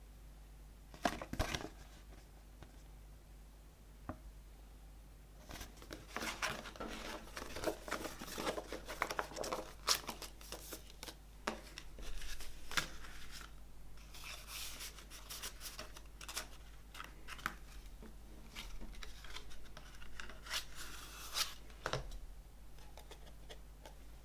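CD album packaging being handled: a run of rustling, scraping and crinkling from paper and plastic, with a few sharp clicks about a second in and again near the end.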